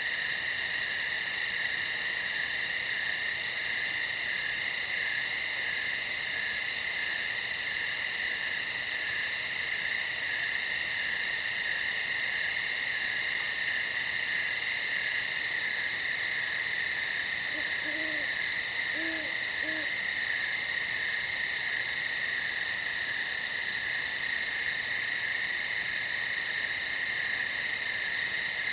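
Night insect chorus: several insects trilling steadily at different pitches, with a few short, low owl hoots about two-thirds of the way through.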